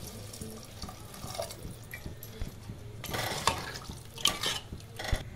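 Water poured from a glass into an aluminium pressure cooker of chickpeas, then a spoon stirring and scraping in the pot, with a single knock near the end.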